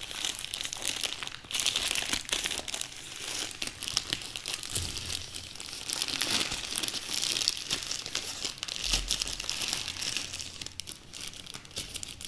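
Plastic courier mailer bag crinkling and being torn open by hand, a continuous crackly rustle with irregular sharp crackles.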